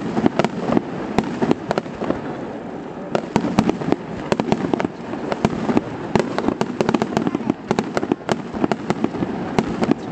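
Aerial fireworks shells bursting in quick, irregular succession: many sharp bangs and cracks, often only a fraction of a second apart.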